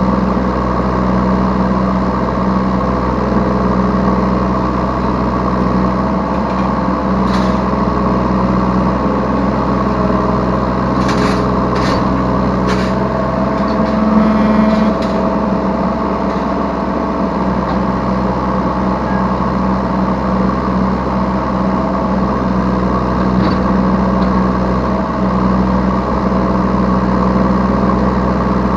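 Yanmar B3 Sigma 3-ton mini excavator's diesel engine running steadily under the operator's seat while it works, with a few sharp clicks and a brief rise in tone about halfway through.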